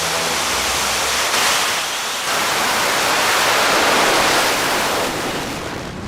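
New Shepard rocket's BE-3 liquid-hydrogen/liquid-oxygen engine at liftoff: a loud, steady rushing noise that fades away in the last half second.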